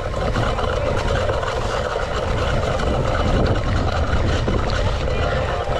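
Wind buffeting a GoPro action camera's microphone while a cyclocross bike is ridden at race pace over rough ground: a steady low rumble with a hiss above it.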